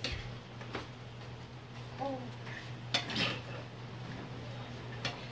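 Metal ladle clinking and scraping against a metal pan as stew is scooped out into a plastic bowl, with a few sharp clinks, the loudest about three seconds in.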